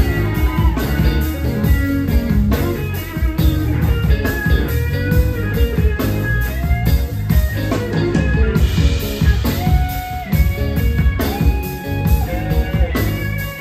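Live rock band playing an instrumental passage: an electric guitar lead with bent notes over electric bass and drums keeping a steady beat.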